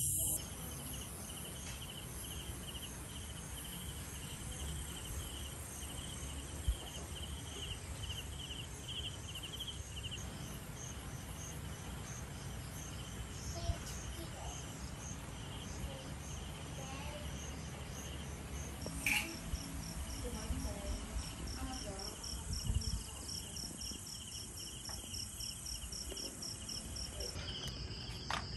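Night insects chirping in steady, pulsing trills, several at different pitches overlapping, over a low background hum of the outdoors.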